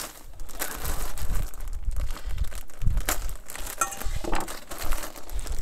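A plastic bag of dry fishing groundbait crinkling and rustling as it is handled, with irregular crackling.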